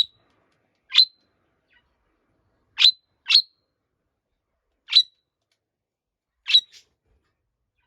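A pet budgerigar giving short, loud, shrill chirping calls, about six single chirps one to two seconds apart, with two in quick succession partway through. These are the loud calls it makes when on its own.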